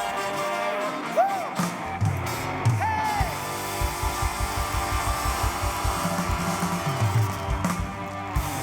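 Rock-and-roll song with guitar, drums and a singing voice, the drums keeping a quick, even beat through the middle.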